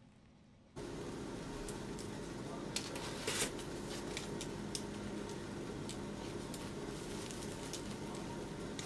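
Steady background hum and hiss that starts suddenly about a second in, with a few soft crackles from the breadcrumb crust of a freshly baked cheese-filled poğaça being pulled apart by hand, most of them about three seconds in.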